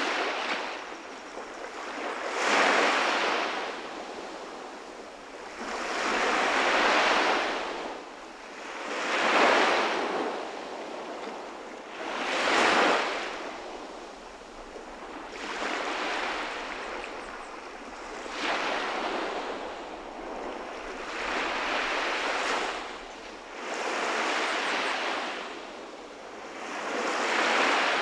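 Sea waves breaking and washing on the shore, in regular swells of surf about every three seconds.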